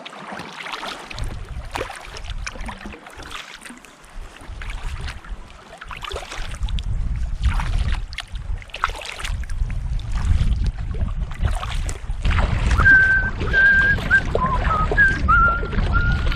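Kayak in choppy water: paddle strokes and waves splashing and slapping against the hull, with wind rumbling on the microphone from partway in. In the last few seconds a run of short, high whistled notes sounds over the water noise.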